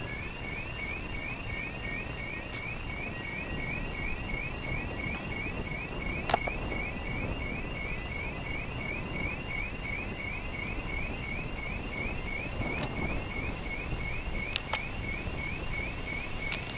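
Electronic alarm chirping without pause, a short rising beep repeated about three times a second, over steady outdoor background noise. A single sharp click sounds about six seconds in.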